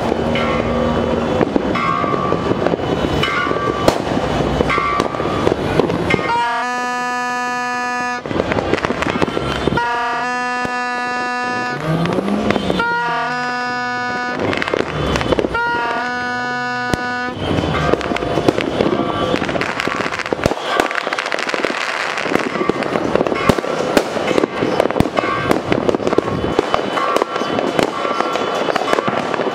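Fireworks and firecrackers crackling and popping in dense, continuous bursts. Through the middle, a horn sounds four long, steady blasts over the crackle.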